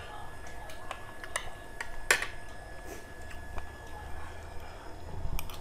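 Metal spoon and fork clicking and scraping against a plate during eating, with scattered light clicks and one louder click about two seconds in. A low steady hum runs underneath.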